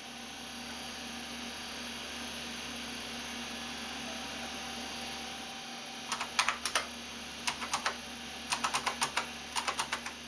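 Keys being pressed on a computer keyboard, in short runs of sharp clicks starting about six seconds in, over a steady low hum.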